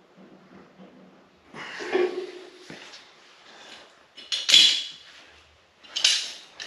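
Tools or metal parts being handled on a workbench: three short clattering, scraping bursts, the sharpest about four and a half seconds in.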